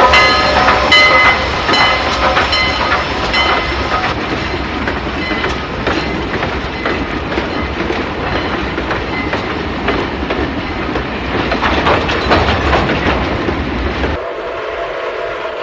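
Train sound effect: a passing train rumbling, with wheels clattering over the rail joints. For the first few seconds a short ringing tone repeats about twice a second. About fourteen seconds in, the rumble cuts off suddenly to a quieter, steadier hum.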